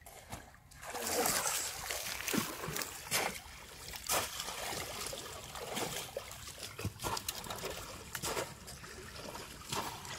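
Shallow river water splashing and trickling as someone wades through it, with a run of short splashes starting about a second in.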